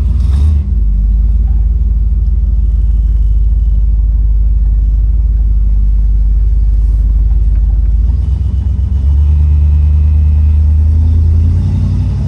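Car engine with a freshly rebuilt Edelbrock 650 four-barrel carburetor running steadily, a deep even rumble; about eight seconds in the engine note steps up a little. The owner is listening for a sucking noise he suspects is air being drawn in around the carburetor.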